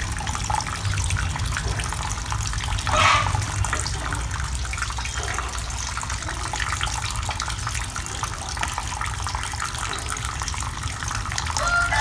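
Water running and splashing steadily in an eel-farming tank, with a low hum underneath and one short louder sound about three seconds in.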